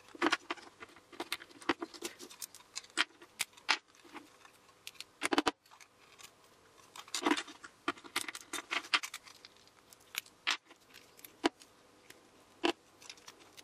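Pliers gripping and tearing the metal connecting tabs off AAA nickel-metal hydride cells from a cordless-phone battery pack. The result is a run of irregular sharp metallic clicks, snaps and clinks as the tabs come away and the cells and pliers are handled.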